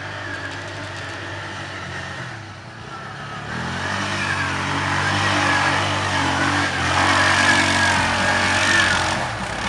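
ATV engine running and then revving harder about three and a half seconds in, getting louder, with wind hiss over it.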